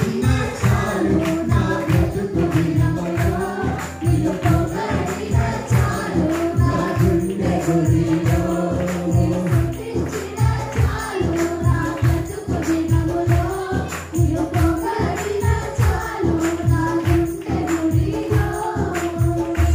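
Worship music: group singing with a tambourine and a steady low drum beat.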